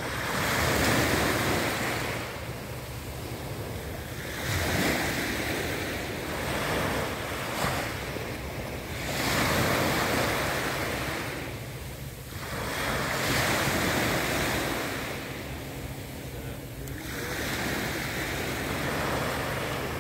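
Waves washing onto a shore, one swell of surf noise every four seconds or so, with some wind noise on the microphone.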